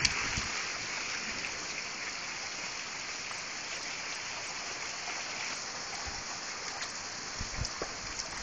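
Heavy rain pouring down in a thunderstorm, a steady hiss, with a few faint low thumps in the second half.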